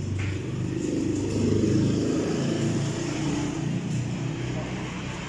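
A motor vehicle's engine running close by, a low hum that swells to its loudest about two seconds in and then eases off.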